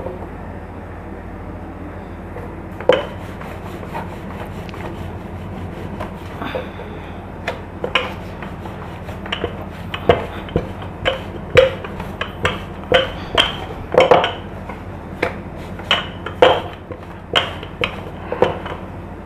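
Wooden rolling pin rolling dough on a board, knocking and clacking against it in short sharp strokes. The strokes are sparse at first, then come about twice a second from the middle on. A steady low hum runs underneath.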